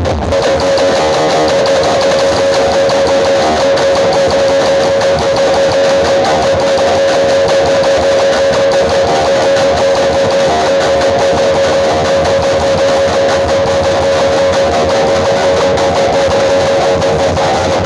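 Loud guitar-led music played over a large outdoor-cinema sound system, with one steady high note held throughout.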